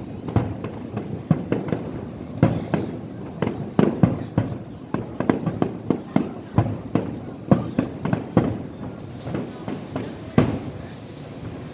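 Fireworks display: shells bursting in a rapid, irregular string of sharp bangs, several a second.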